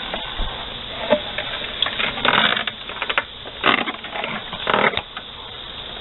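A handful of short scrapes and knocks from the cut-open steel tractor gas tank as it is handled and shifted by hand, the longest a little over two seconds in, over a steady noisy background.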